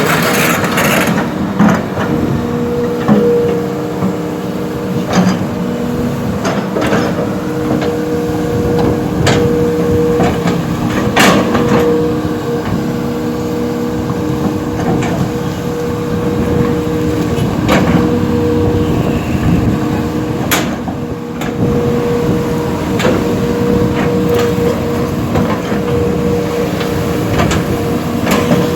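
A heavy earthmoving machine working, its engine running with a steady whine, broken by scattered sharp knocks and clanks.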